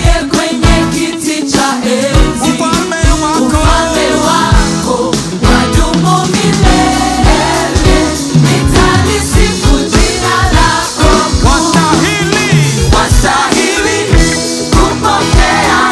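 Gospel worship music with a steady drum beat and singing voices.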